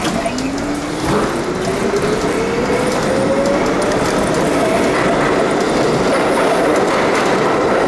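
R32 subway train accelerating: its traction motors and gears whine in a steadily rising pitch for the first four or five seconds, then level off. Beneath the whine, the wheels rumble on the rails, growing louder from about a second in.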